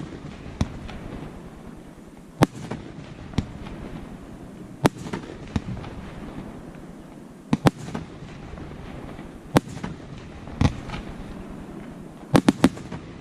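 Fireworks display: single sharp bangs of bursting shells every second or two, irregularly spaced, with a quick cluster of three or four bangs near the end, over a continuous low background.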